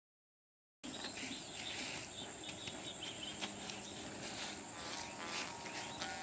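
After about a second of silence, faint outdoor field ambience with a steady high-pitched insect drone.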